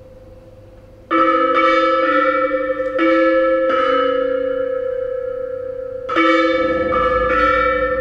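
Bell-like metal percussion struck in two groups, five strikes and then three, each ringing on over a steady held tone. A low rumble comes in near the end.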